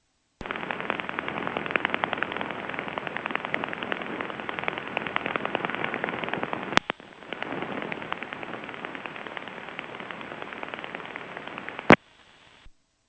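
Crackling radio static on the aircraft radio and intercom audio, a rough hiss with rapid crackles. It switches on with a click about half a second in, breaks off briefly with a click near the middle, and cuts off with a click near the end, like a carrier keyed with no voice on it.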